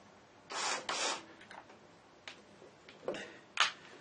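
Short bursts of scraping as a cordless drill briefly turns a homemade high-speed-steel reverse boring bar, shaving a countersink into a plastic part. There are two bursts about half a second and a second in, then two more near the end, the last the loudest.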